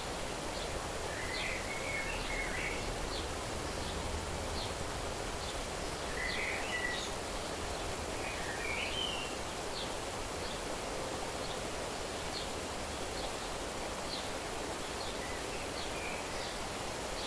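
Outdoor nature ambience: a steady rustling hiss with bird calls, short chirping phrases in three brief clusters, over faint high chirps repeating a little more than once a second.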